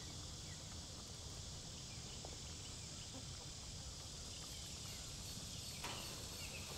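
Faint outdoor ambience: low wind rumble on the microphone and a steady high hiss, with chickens feeding and giving the odd soft cluck. A single knock about six seconds in.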